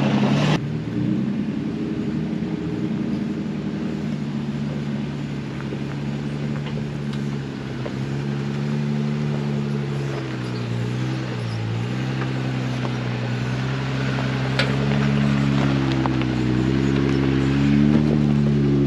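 Jeep Wrangler engine running at low speed as it crawls up a dirt trail and passes close by. Its note dips briefly about halfway through and rises a little near the end as it pulls alongside.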